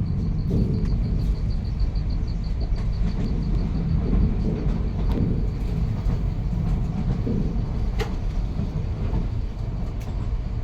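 Indian Railways train running along the track, a steady low rumble with a few sharp clicks from the wheels and rails.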